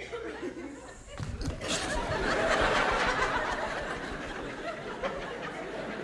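Theatre audience laughing: the laughter swells about a second in and slowly dies down.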